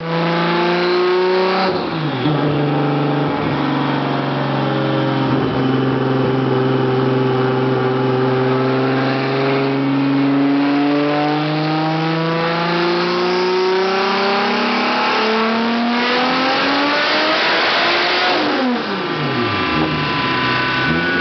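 Toyota Supra Turbo's turbocharged inline-six in a full-throttle dyno pull, its pitch climbing slowly and steadily with the revs for most of the run. Near the end the throttle closes and the revs fall away sharply.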